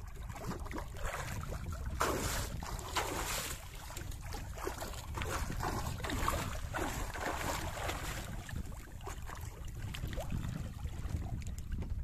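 Water splashing as a swimmer kicks and strokes alongside an outrigger boat, with many small splashes and a busier burst of splashing about two seconds in, over a low wind rumble on the microphone.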